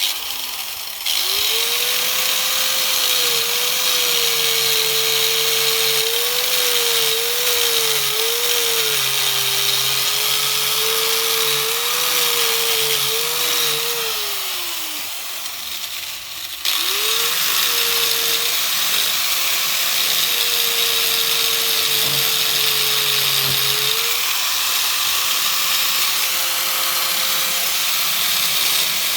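Angle grinder with a polishing wheel working an aluminium engine case. Its motor whine spins up, wavers and dips as the wheel is pressed on, winds down and stops about halfway, then starts again and runs steadily.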